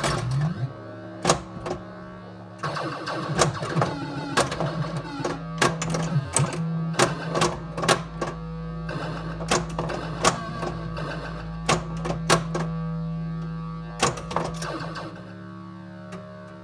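Bally Elektra pinball machine in play: electronic game sounds from its Squawk & Talk sound board, a steady low drone with pitched tones over it, broken by many sharp irregular clacks from the playfield. The drone drops away near the end.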